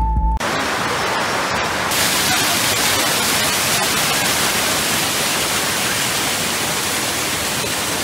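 Rushing water of a waterfall, a steady hiss that cuts in abruptly as a short bit of music ends, turning a little brighter about two seconds in.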